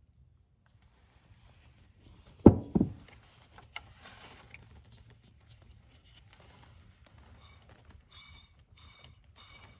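Two heavy thumps about two and a half seconds in as the fan motor is handled on the bench, then a few clicks. From about three quarters of the way in, the tower fan motor's dried-out shaft bearing squeaks in short chirps, about two a second, as the shaft is spun by hand after a squirt of penetrating lubricant.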